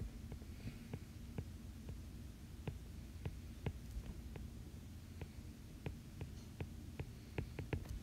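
Light, irregular taps of a stylus on a tablet's glass screen, one or two a second, some sharper than others, over a steady low hum.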